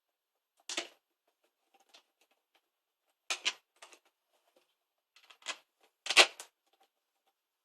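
Scattered clicks and rattles of a plastic faceplate and its screws being handled and screwed down onto an electrical back box, about five separate bursts, the loudest about six seconds in.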